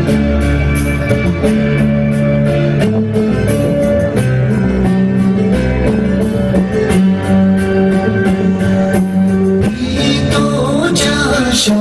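Guitar-led background music with a steady beat and a singing voice.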